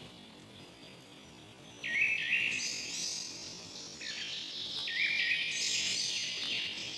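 Songbirds chirping in a forest: a burst of quick, high chirps about two seconds in, with more phrases around four and five seconds. Under them is a steady high hiss.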